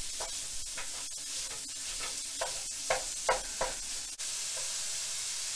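Raw ground pork sizzling in a nonstick frying pan while a plastic meat chopper mashes it into crumbles, with repeated short scrapes and taps of the tool against the pan. After about four seconds the mashing stops and only the steady sizzle is left.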